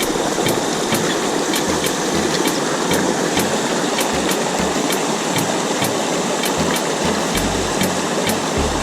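Rushing mountain creek water, a steady loud hiss, with occasional low bumps on the microphone.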